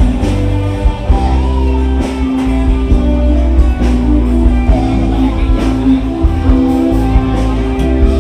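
Live band music, guitar chords over a heavy bass with drum hits, heard amplified across the market.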